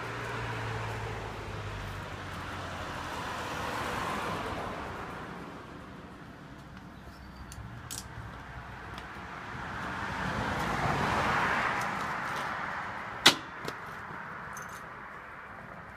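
Two vehicles passing on the street, each swelling and fading, then a single sharp metallic click a few seconds before the end.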